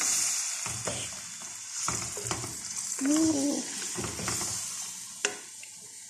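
Chicken pieces and onion frying in hot oil in a wok, sizzling, while a wooden spatula stirs them, scraping and knocking against the pan. The sizzle grows quieter toward the end, and there is one sharp tap of the spatula on the pan just past five seconds in.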